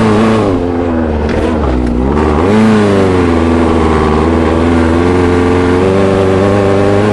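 Dune buggy engine running under way, its pitch dipping and picking back up twice in the first few seconds, then holding steady.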